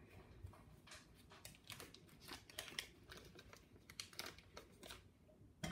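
Faint, irregular crinkling and rustling of a paper wrapper being peeled off a stick of butter.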